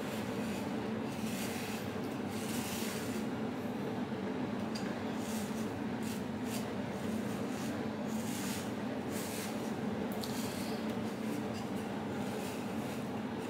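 A hair brush stroked repeatedly through natural hair, giving irregular rough swishes every second or so, over a steady low hum.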